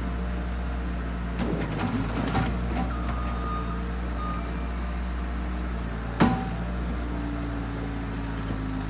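Skid loader engine running steadily, with a few metal clanks about two seconds in and one sharp knock about six seconds in.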